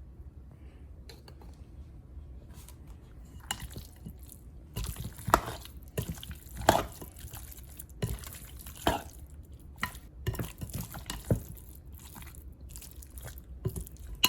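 Raw chicken wings being mixed in a wet spice marinade, giving irregular squelches and sticky smacks, sparse at first and more frequent and louder from about three seconds in.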